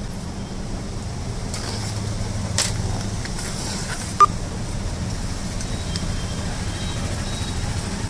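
Cardboard shipping box being slit open and its flaps folded back by hand, with light rustling and a sharp click about four seconds in, over a steady low hum.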